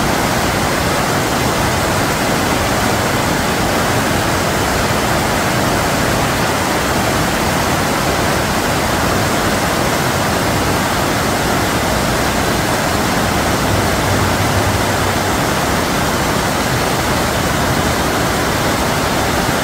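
Muddy, rain-swollen stream pouring over a low stepped weir into churning whitewater: a loud, steady rush of water.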